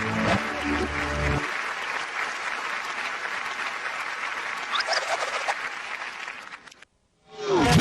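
Audience applauding after a song: the song's last chord dies away in the first second and a half, and the clapping fades out about seven seconds in. A short voice sound starts right at the end.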